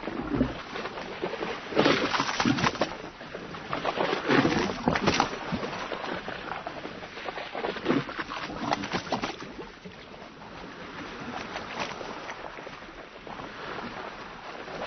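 Sea waves splashing and washing along a boat's hull in irregular surges, with louder splashes about two, four to five and eight to nine seconds in. After about ten seconds it settles quieter, then builds again at the very end.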